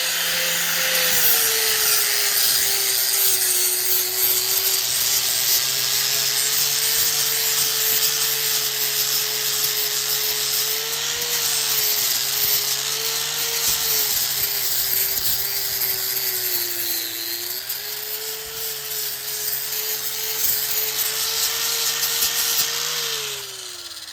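Electric sander running against a cottonwood stick, taking off the bark. The motor's pitch sags and recovers as it is pressed into the wood, over a steady gritty hiss, then the motor winds down with a falling pitch about a second before the end.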